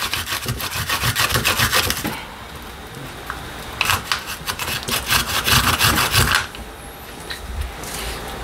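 Garlic cloves being grated on a hand grater: quick back-and-forth rasping strokes in two bursts of about two seconds each, with a pause between.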